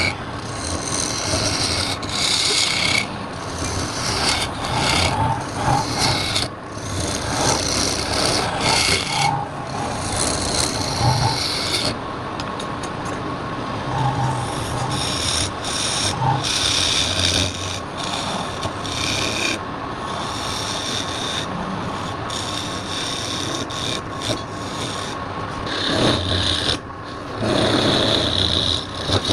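Wood being worked on a lathe: a tool scraping against the spinning wooden workpiece in a continuous rasping, with brief breaks where the tool comes off the wood.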